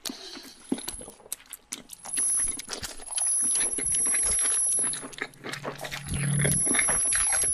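Slowed-down glitchy electronic music with no vocals: scattered clicks and crackles over thin, high, steady synth tones. A low bass drone swells in during the second half.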